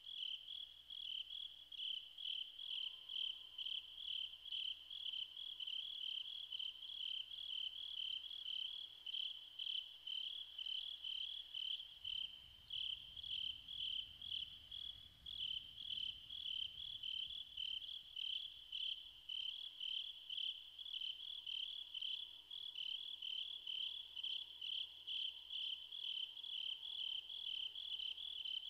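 Crickets chirping in a steady, rhythmic pulse: the recorded cricket chorus that opens the album.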